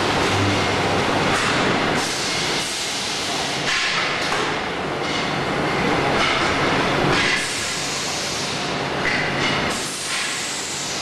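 Motorcycle wheel rim roll forming machine running, its rollers forming a steel strip into a rim profile: a continuous loud mechanical clatter and hiss whose texture shifts abruptly a few times.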